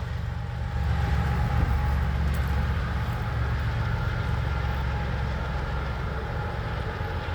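Empty coal train rolling past with a distributed-power diesel locomotive in the consist: a steady low rumble of wheels on rail and engines, with a faint high steady whine.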